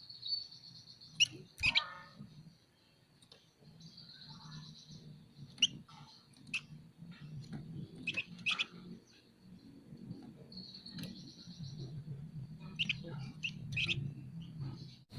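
Flamboyan (Javan fulvetta) calling in short, sharp, scattered chirps, some in quick pairs, with a few high thin buzzing trills held for about a second at a time. A faint low hum runs underneath.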